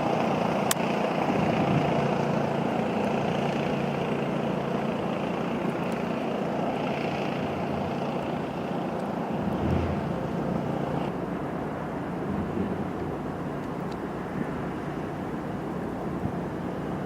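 Steady motor-vehicle noise: a low hum under an even rush of road or wind noise, slowly fading a little.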